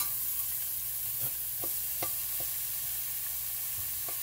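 Sliced onions, peppers and celery dropped into hot olive oil in a stainless steel sauté pan on high heat, sizzling steadily from the moment they land. A few light clicks of a fork stirring against the pan.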